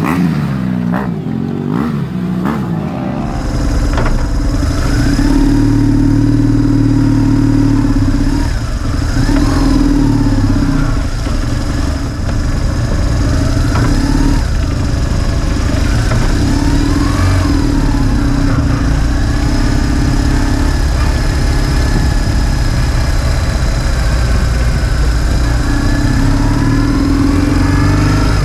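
Onboard sound of a BMW R1100GS riding at low speed, its 1085 cc boxer twin running steadily, with the engine note dipping and picking up again several times. For the first three seconds other motorcycles rev, with a few knocks.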